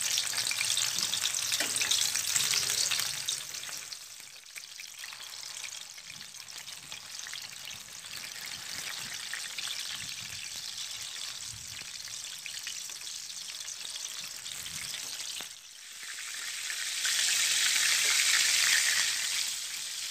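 Battered stuffed tofu deep-frying in hot oil in a pan, a dense crackling sizzle. It is loud for the first few seconds, quieter through the middle, and swells loud again about three-quarters of the way through.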